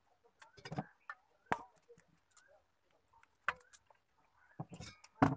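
Scattered knocks and taps from hands mixing flour and water into dough in a steel bowl, the loudest one near the end.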